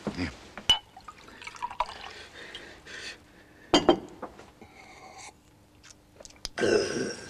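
Drinking from a small glass: scattered light clicks of the glass being handled, a louder sip about four seconds in, and a brief louder noise near the end.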